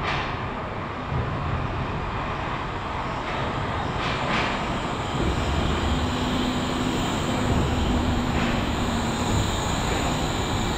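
Wuppertal Schwebebahn suspended monorail train running: a steady rumbling, rushing noise, with a faint low hum in the second half.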